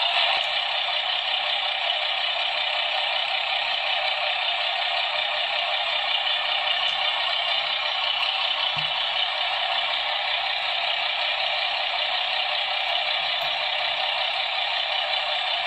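Truck engine running sound played by the Star 266 model's small built-in speaker, a steady even drone with almost nothing in the low end.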